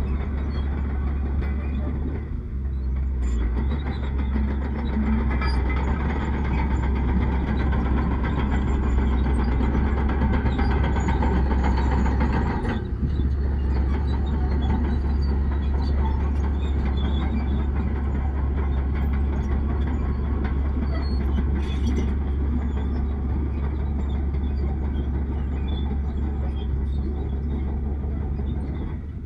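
Heavy diesel earthmoving machinery running steadily with a deep rumble, with short breaks about two and a half seconds and about thirteen seconds in.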